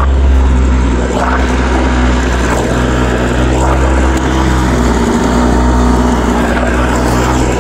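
Small outboard motor running steadily at a constant speed, pushing an inflatable boat.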